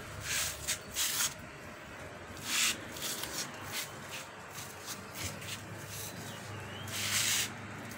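Ginger cats hissing in a few short bursts, the longest near the end, as they square off. A steady low hum runs underneath.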